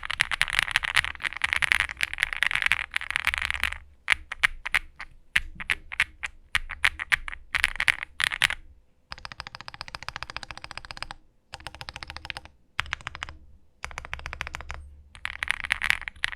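Typing on an Owlab Spring Alice-layout mechanical keyboard: rapid runs of keystrokes broken by brief pauses, with slower single strokes now and then.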